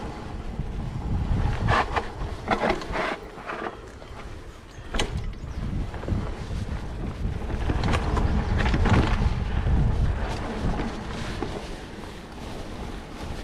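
Wind buffeting the microphone over the rumble of a hardtail mountain bike rolling along a dirt singletrack, with a few sharp clatters about two to three seconds in and another at about five seconds.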